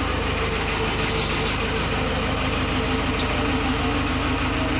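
JCB backhoe loader's diesel engine idling steadily, heard from inside the cab, with an even low pulsing.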